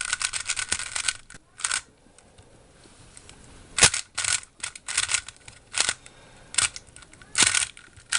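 GAN 356 Advanced speedcube being turned by hand, its plastic layers clicking. There is a quick flurry of turns at the start, a pause of about two and a half seconds, then single turns about every half second.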